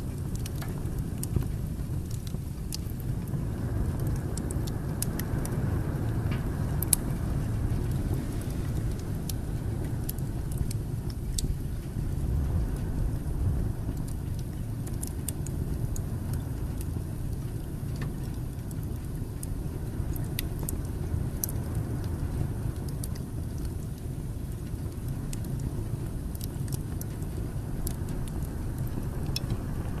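Wood fire burning in an open fireplace: a steady low rush of flames with scattered sharp crackles and pops from the burning logs, the sharpest pop about seven seconds in.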